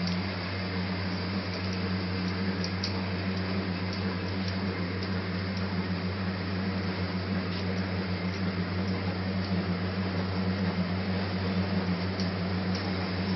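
Spectrapack SP-450 film rewinder machine running at a steady 50 m/min: an even low hum with a hiss over it, and faint light ticks now and then.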